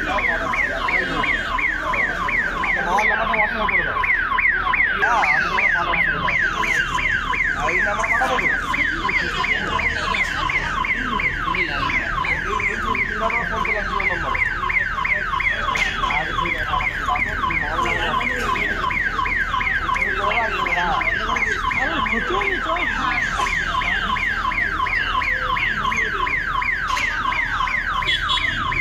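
Electronic warning siren sounding continuously: a loud tone sweeping in pitch, several sweeps a second, repeating without a break.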